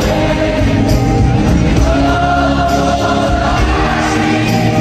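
Live arena concert: thousands of fans singing along in unison with a rock song while the band plays. The crowd's voices match and nearly drown out the lead singer's.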